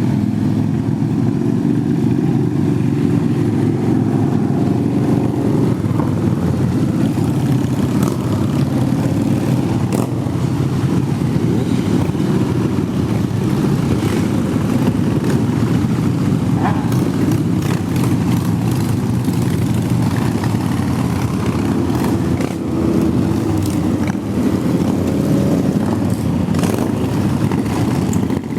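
Motorcycle engines running steadily.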